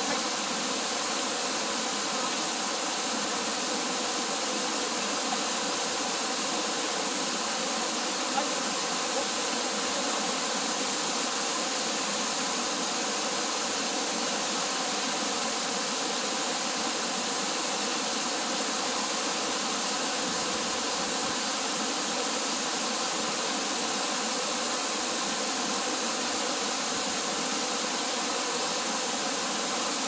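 Waterfall pouring down a rock face and splashing onto the rocks below, a steady rushing of water that does not change.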